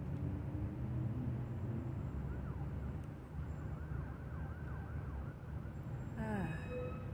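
Steady low outdoor rumble, with a faint run of short falling chirps in the middle. Near the end a person breathes out hard with a short voiced 'hoo' that falls in pitch, cooling her mouth after eating something very spicy.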